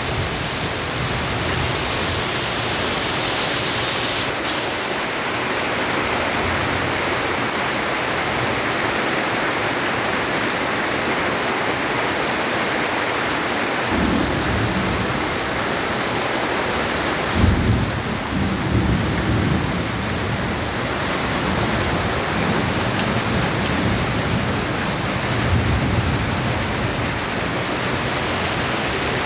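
Heavy rain pouring steadily on tree foliage, a constant hiss, with a few low rumbles in the second half.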